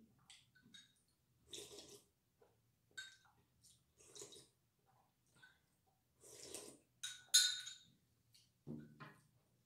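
Soup slurped off a spoon from a ceramic bowl, three slurps a couple of seconds apart, with a metal spoon clinking against the bowl, the loudest clinks twice in quick succession late on. Just before the end comes a dull knock as the bowl is set down on the table.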